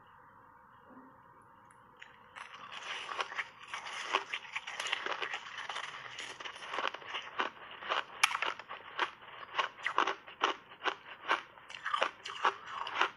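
Crunchy white snow-block ice, soaked in berry juice, being bitten in big bites and chewed close to the microphone. After a faint hiss for about two seconds, dense crunching and crackling sets in, with sharp crunches a few times a second that grow louder toward the end.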